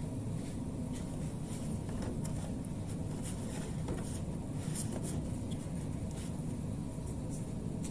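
Irregular soft scrapes, ticks and rustles of hands working food in a plastic basin, over a steady low machine hum.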